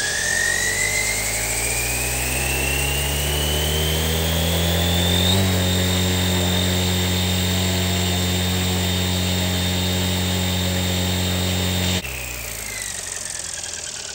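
Electric RC helicopter, a FlyWing with a 3D-printed carbon-fibre PETG main gear, spooling up on the ground with the blades on. The motor and gear whine rises in pitch for about five seconds, then holds steady at head speed. About twelve seconds in the sound drops suddenly, and the whine begins to fall as the rotor winds down.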